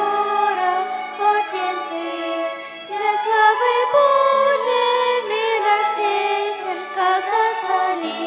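A vocal ensemble singing a Christian hymn in several parts, accompanied by violin.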